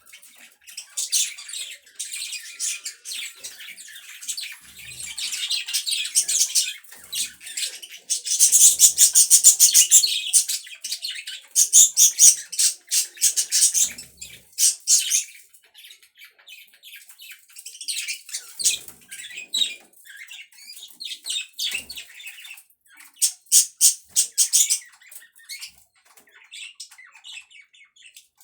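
Pet budgerigars chattering and chirping in rapid warbling bursts, several birds at once, loudest in two spells in the middle.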